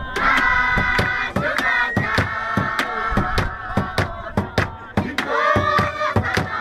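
Zulu ingoma dance accompaniment: a group singing and calling out in long held notes over a quick, steady beat of hand-clapping. The voices swell near the start and again about five seconds in.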